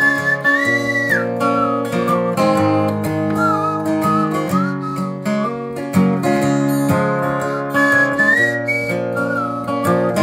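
Acoustic guitar playing a folk-blues accompaniment while a single whistled melody line slides up and down over it.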